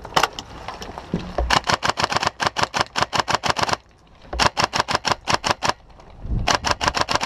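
Airsoft rifle firing rapid strings of shots, about seven sharp clacks a second, in three strings with short pauses between them.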